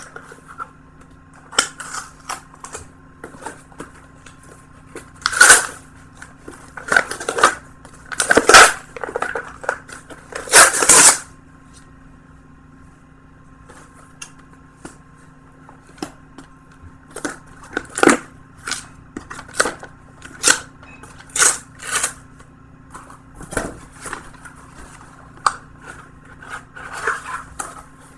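A mail-order package being opened by hand: irregular crackling, rustling and tearing of the packaging, with a few longer tearing sounds in the first half. A steady low hum runs underneath.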